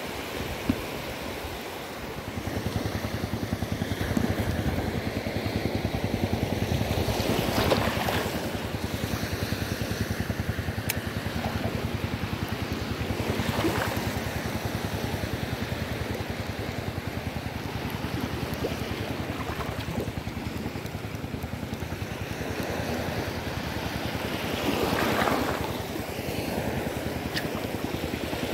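Small waves washing over a shallow sandy shore: a steady rushing wash that swells louder a few times.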